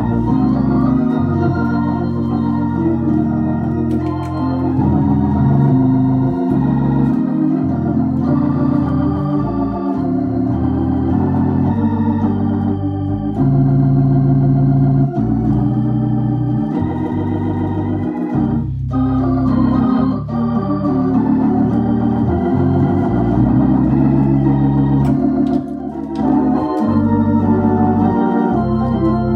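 Viscount Legend Live drawbar organ played through a Tornado T115 valved rotary speaker: sustained chords and a moving melody over changing low notes. The music breaks off briefly twice, about 19 and 26 seconds in.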